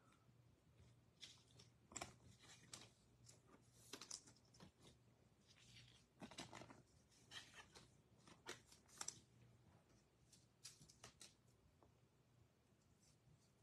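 Faint, irregular rustling and light clicking of trading cards being handled, slid and set down, over a faint steady low hum.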